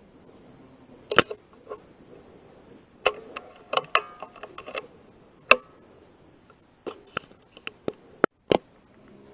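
Air rifle shooting at rats: a string of sharp clicks and knocks, the loudest about a second in, three seconds in and five and a half seconds in, with quicker clusters of lighter clicks between them.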